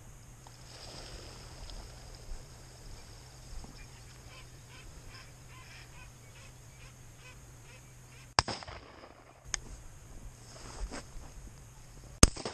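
Flushing ducks quacking faintly and repeatedly. Sharp knocks follow, and near the end comes a loud sharp crack.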